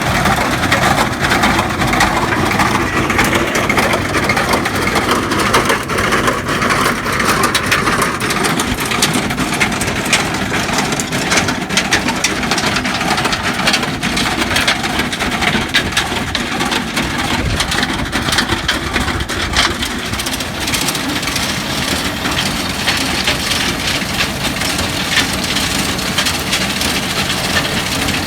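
Hattat tractor's diesel engine running steadily while a tractor-drawn stone-picking machine gathers stones, with a constant rattle and clatter of rocks knocking together.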